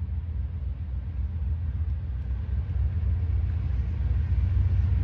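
Low rumble of an approaching freight train's diesel locomotives, growing steadily louder.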